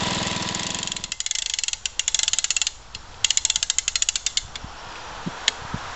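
A 1966 Briggs & Stratton lawn mower's wind-up starter being cranked by hand, its ratchet clicking rapidly in two runs with a short pause between, then a few single clicks. The engine is running at the start and cuts off about a second in.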